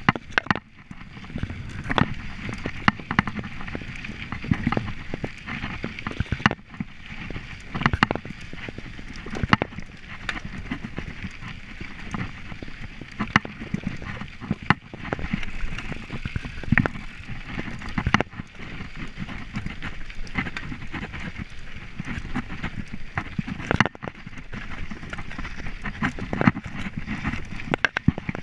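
Mountain bike ridden over rough dirt and rock singletrack: a steady rush of tyres on the ground, broken by frequent irregular rattles and knocks as the bike and its handlebar-mounted camera are jolted over bumps.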